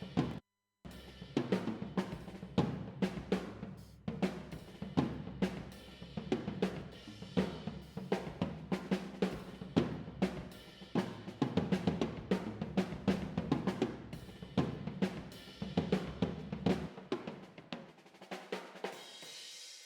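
A recorded drum kit playing back a steady groove of kick, snare, hi-hat and cymbals. It cuts out for about half a second just after the start. Near the end the kick and low end drop away, leaving only the cymbals ringing.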